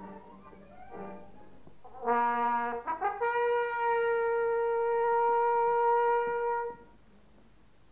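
A solo trumpet sounds a short low note, then slides up to a long held note an octave higher that lasts more than three seconds and stops near the end. Before it, the last of some orchestral music fades out.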